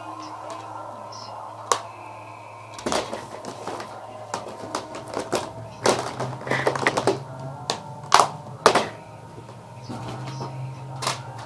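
Irregular clicks and knocks of hands handling things right at the microphone, over a steady low hum; two sharp knocks about eight seconds in are the loudest.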